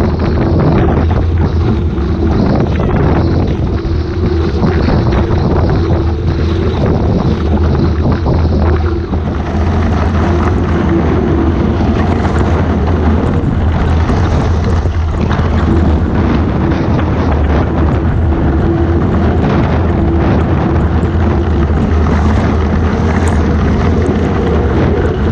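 Heavy wind buffeting an action camera's microphone on the hull of a Hobie 16 catamaran sailing fast, over a steady rush of water and spray along the hull. The spray grows into a brighter hiss from about nine seconds in.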